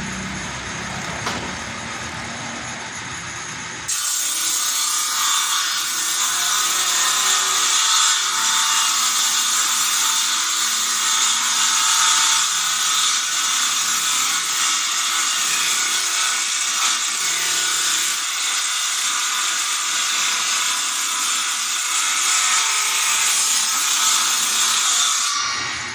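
Table saw ripping a wooden board lengthwise along the fence. The blade spins free for about four seconds, then bites into the wood and cuts loudly and steadily for about twenty seconds, dropping back to free-spinning just before the end.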